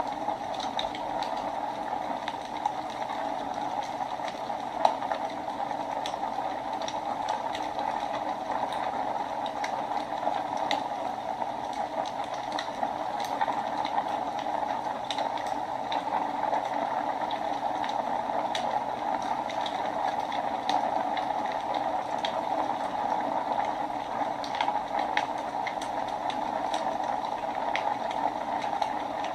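Wood fire burning in a fireplace: a steady hiss with irregular small crackles and pops, one sharper pop about five seconds in.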